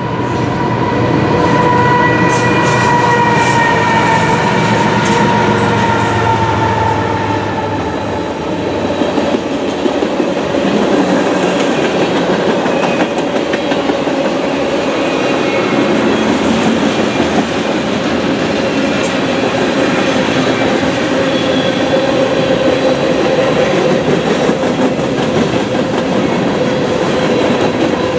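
Freight train's tank cars and gondolas rolling past at close range: a steady, loud rumble and clatter of steel wheels on rail. A thin, high wheel squeal sounds over it, drifting slightly lower through the first several seconds.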